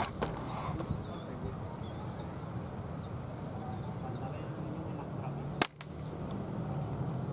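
Two sharp air-rifle shots over a steady low background noise, one right at the start and one about five and a half seconds in.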